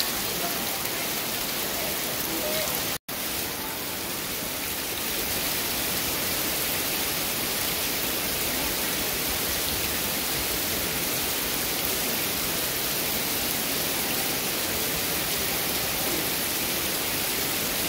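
Heavy rain pouring steadily, a dense even hiss of drops on wet, puddled ground. The sound is broken by a sudden brief dropout about three seconds in.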